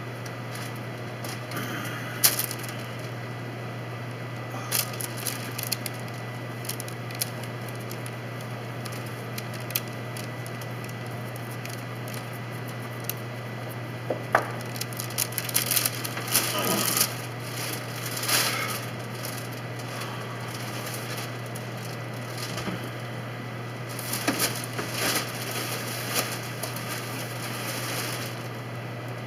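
Scattered light clicks, knocks and short scraping rustles of hand work inside a boat's hull, over a steady low hum.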